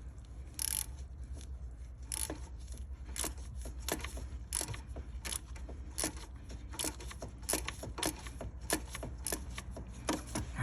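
Hand ratchet clicking in short, repeated strokes, about one click every second or less, as a Torx bolt is driven back in. A steady low hum runs underneath.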